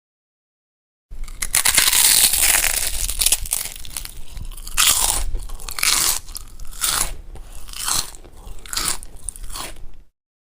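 A person biting and chewing crunchy food close to the microphone: a dense run of crunching starts about a second in, then settles into separate chewing crunches roughly once a second, stopping just before the end.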